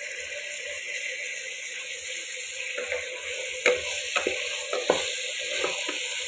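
Drumstick and tomato pieces sizzling in an open pressure-cooker pot with a steady hiss. From about three seconds in, a spoon knocks and scrapes against the pot a few times as the mix is stirred.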